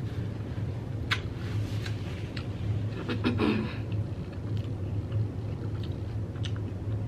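Close-miked chewing of a Hot Cheetos taco bowl: scattered crunches and mouth clicks, with a brief closed-mouth "mm" about three seconds in, over a steady low background hum.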